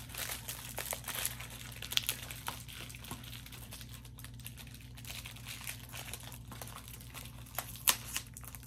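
Plastic packaging crinkling and crackling as a Blu-ray case is handled and unwrapped, with scattered small clicks and one sharper click about eight seconds in.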